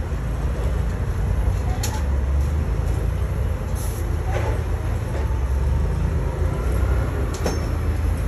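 Large truck's engine running with a steady low rumble, with a few sharp knocks or clanks about two, four and seven and a half seconds in.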